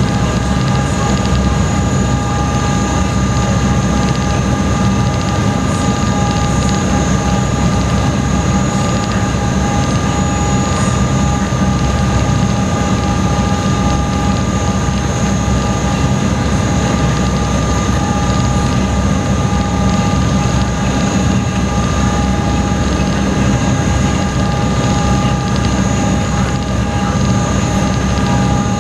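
High-speed passenger ferry under way, heard from inside the cabin: a loud, steady engine drone with a low rumble and several steady whining tones over it.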